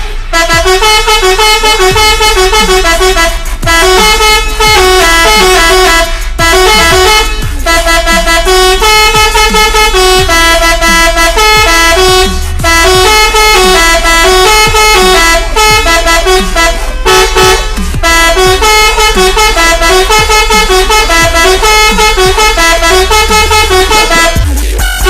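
Electric 'telolet' musical horn with three trumpets playing a tune: loud, short horn notes stepping up and down in a quick melody, with brief breaks between phrases.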